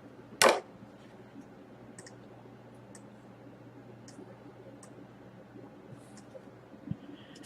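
Scattered small clicks over a faint steady low hum: one sharp click about half a second in, then faint ticks roughly once a second and a soft knock near the end.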